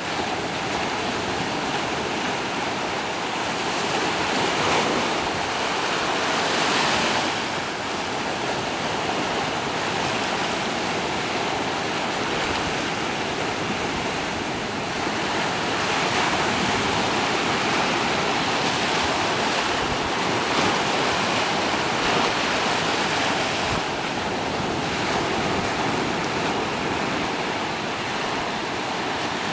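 Small shore waves washing up over sand and rocks: a steady wash of surf that swells louder every few seconds as each wave comes in.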